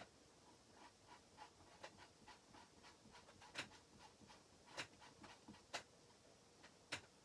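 Faint, quick scraping strokes of a plastic squeegee spreading chalk paste over a silkscreen stencil on a wooden sign, with about four louder scrapes in the second half.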